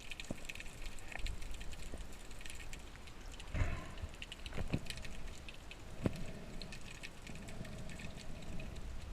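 Underwater ambience on a spearfishing dive: a dense crackle of small sharp clicks, with a few heavier knocks.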